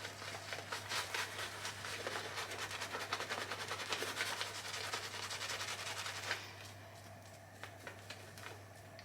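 Shaving brush swirling a thick soap lather, a fast wet squishing crackle that stops about six seconds in, followed by a few stray clicks. A steady low electrical hum runs underneath.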